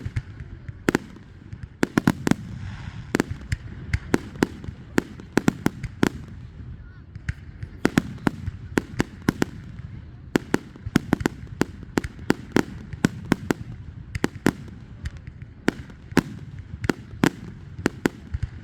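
Fireworks going off in quick, irregular succession: many sharp cracks and bangs, often several a second, over a continuous low rumble.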